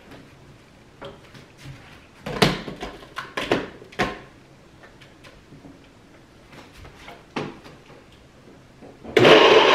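Several short knocks and clatters of handling, the loudest about two to four seconds in. Then, near the end, an electric kitchen blender switches on and runs steadily, blending coconut pieces with water.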